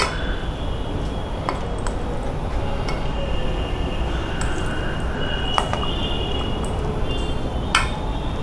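Steel spoon clinking and scraping against a stainless steel bowl as a chaat with crisp fried gram-flour strands is stirred. There are a handful of sharp clinks, the loudest near the end, over a steady low background rumble.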